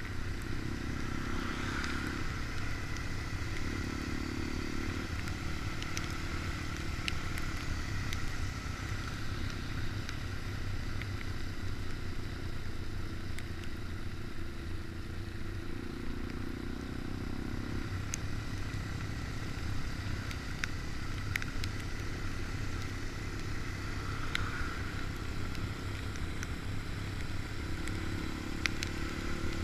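Honda Dax minibike's small single-cylinder engine running steadily on a downhill ride, with a higher engine note rising in for a second or two a few times.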